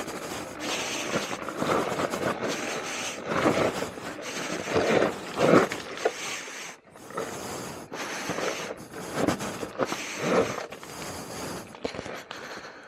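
Talaria Sting R electric dirt bike riding a rough, wet trail: uneven scraping and rumbling of the tyres and chassis over dirt and rocks, with wind on the microphone, surging and dipping irregularly.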